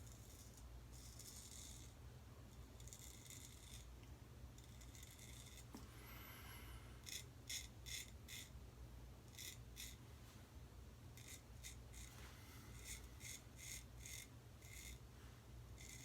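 Boker Tree Brand straight razor scraping through lathered stubble, faint short strokes in quick runs of three to five.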